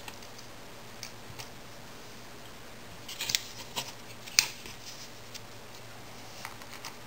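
Light metal clicks and clinks of channel lock pliers being handled and set against a small aluminium jig: a few scattered clicks, a cluster about three seconds in, and one sharp click about four and a half seconds in.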